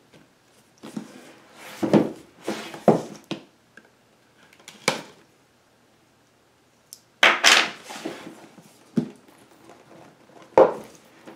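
Pocket knife blade scraping and slicing along the seams of a cardboard box, with short scrapes and knocks. About seven seconds in comes a longer rush of cardboard sliding as the box is opened and lifted, then a couple of knocks of the box being handled on a wooden table.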